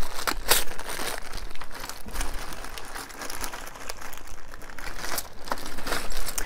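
Plastic bag crinkling and rustling as it is handled, with a few sharp clicks among the crackle.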